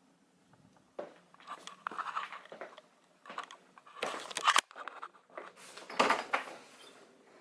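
Irregular rustling and crunching noises in several short bursts, the loudest about four and six seconds in.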